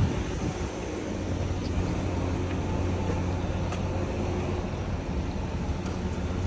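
A steady low mechanical drone, like a motor running, under a wash of noise.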